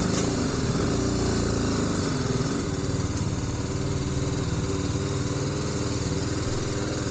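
Motorcycle engine running at a steady, unchanging pitch while riding, over an even rush of wind and road noise.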